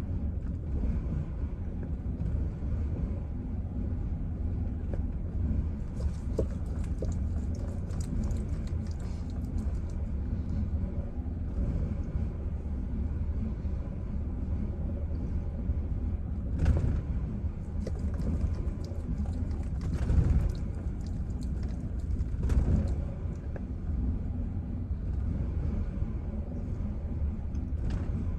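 Chevrolet Silverado engine idling very roughly, with a steady low rumble and three brief louder surges in the second half.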